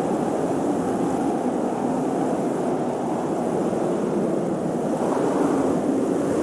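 Blizzard wind blowing steadily in a dense rush of noise, swelling a little about five seconds in.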